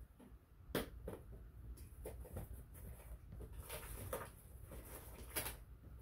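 Scattered small clicks and light knocks over a low steady hum, the sharpest about three-quarters of a second in and another strong one near the end.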